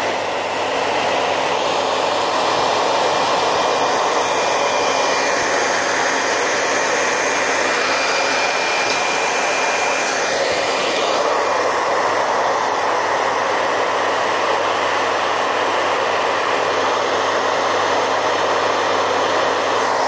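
Handheld hair dryer blowing steadily at close range: an even rushing of air with a faint high whine.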